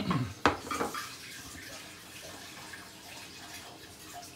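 Water boiling steadily in a covered steamer pot while fish steams, an even rushing noise. Two sharp knocks come in the first half-second.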